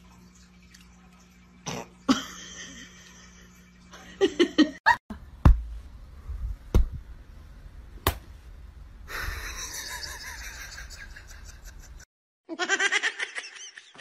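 A few sharp clicks, then a person laughing in quick bursts near the end.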